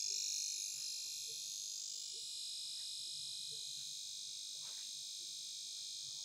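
Ultrasonic rat repeller's tweeter running at its low frequency setting, giving off a steady, shrill electronic tone made of many high pitches sounding together.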